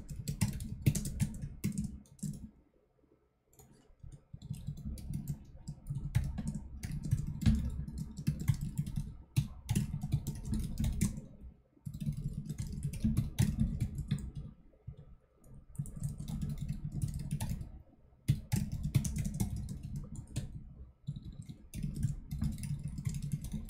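Typing on a computer keyboard: runs of rapid key clicks broken by several short pauses, the longest about two seconds in.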